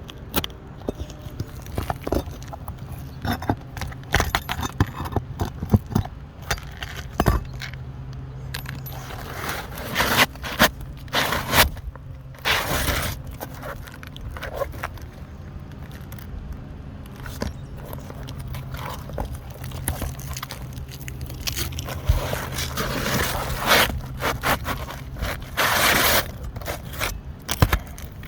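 Irregular scraping and knocking, with louder scraping passages about ten seconds in and again about twenty-two seconds in, over a steady low hum.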